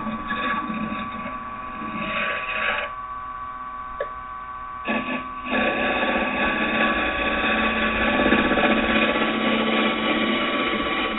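Wood lathe running with a steady motor whine while a carbide round-tip finisher scrapes a spinning piece of green oak. The cut pauses for about two seconds near the middle, with one click, and resumes louder.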